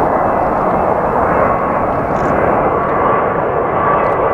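Boeing 787-9 airliner on final approach with its Rolls-Royce Trent 1000 turbofans running: a steady jet rush, with a thin whine in the upper range that grows stronger from about a second and a half in.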